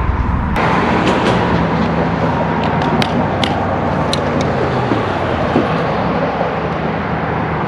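Steady rumble of road traffic crossing the concrete bridge overhead, with a few light clicks around the middle.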